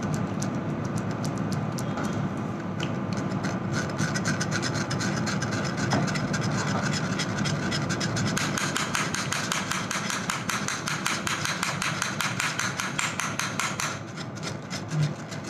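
Wire whisk scraping against a stainless-steel mesh strainer as it pushes thick pumpkin puree through, a rapid rhythmic rasping that gets faster and denser about halfway through.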